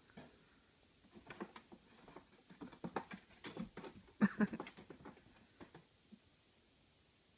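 A cat scrambling about on a carpeted cat tree: a flurry of soft taps, bumps and scratches from its paws, loudest a little past four seconds in.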